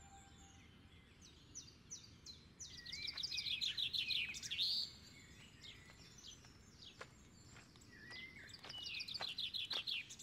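Small birds singing: two rapid trilled song phrases of repeated high notes, a few seconds each, with scattered single chirps between them.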